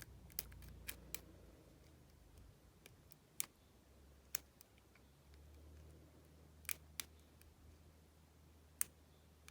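Small sharp metallic clicks at irregular intervals, a few in close pairs, from a hook pick and tension wrench working the pin tumblers in the keyway of an Abus 70AL/45 padlock.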